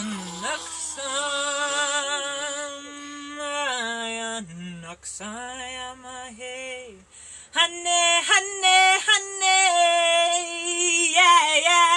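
A woman singing long, held wordless notes with vibrato, light-language vocalizing. There is a short break near the middle, then louder, higher notes.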